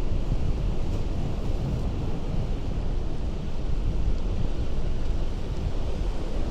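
Ocean surf on a rocky coast, a steady rumbling wash, with wind buffeting the microphone.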